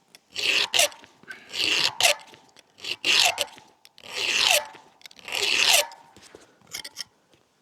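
Hand file stroking across a chainsaw chain's cutter teeth as the dull chain is sharpened: five even rasping strokes, about one every second and a bit, each with a slight falling tone. The cutters on this side are in good condition and put up little resistance to the file.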